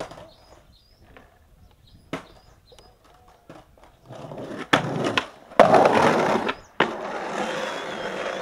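Skateboard rolling on hard ground after a few light clacks, then a sharp knock and about a second of loud scraping as it grinds along a painted concrete ledge, ending in a clack and steady wheel roll.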